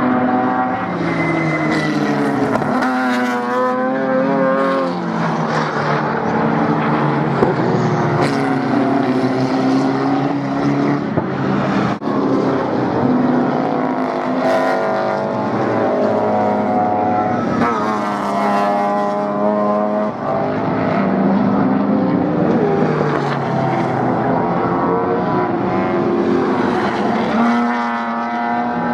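Improved Production race cars running at racing speed, several engines at once. Their notes climb hard through the revs and drop at each gear change, over and over, as cars accelerate past.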